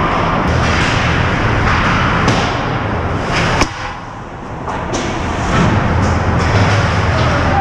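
Ice hockey play close to the net: skate blades scraping and sticks clattering on the ice over a steady arena din, with one sharp crack about three and a half seconds in.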